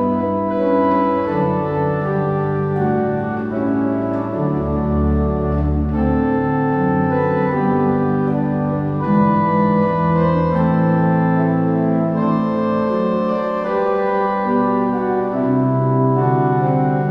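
Pipe organ playing slow, sustained chords, with a deep bass note sounding briefly about four and a half seconds in.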